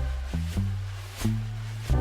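Background music with a steady beat: electronic instrumental with bass notes and a regular percussive hit.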